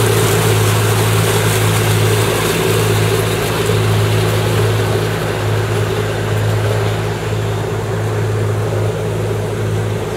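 Motorboat engine running steadily with the boat underway, a constant low hum over the rush of water and wind.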